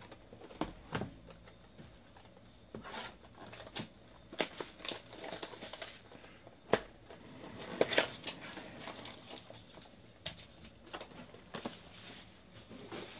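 Clear cellophane shrink wrap crinkling and tearing as it is stripped off a cardboard box of trading cards, with a couple of knocks about a second in as the box is lifted off the stack. The crackling is busiest through the middle, with one sharp click.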